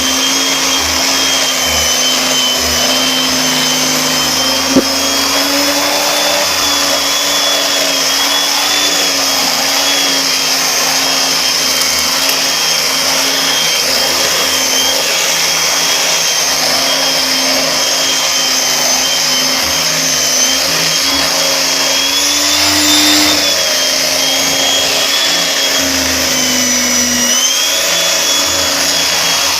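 Vacuum cleaner running steadily, a loud motor whine whose pitch shifts slightly now and then as it is pushed over the floor. One sharp click about five seconds in.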